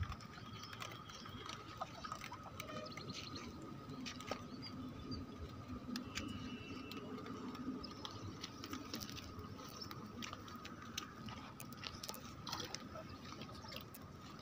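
Faint outdoor ambience at the water's edge: a steady high tone runs throughout, with scattered small clicks and ticks and a couple of brief bird chirps.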